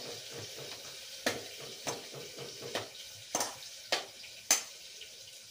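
Boiled potatoes and peas being mashed in a steel bowl: a utensil knocks against the bowl six times, roughly every half second, over a steady hiss.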